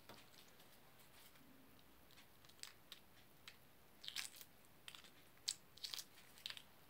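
Faint crackling of eggshell as a hard-boiled egg is peeled by hand: scattered small cracks and ticks, more frequent in the second half.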